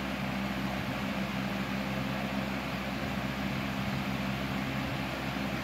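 Vintage 1960s–70s two-speed Capri box fan running on low speed: a steady electric motor hum under an even rush of air from the blades.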